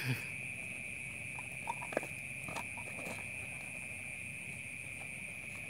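Steady high-pitched chirring of night insects, with a few faint clicks and knocks about two and three seconds in.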